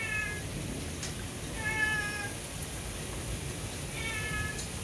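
A house cat meowing three times in drawn-out, fairly level calls, frightened by a severe thunderstorm, over a steady low storm rumble.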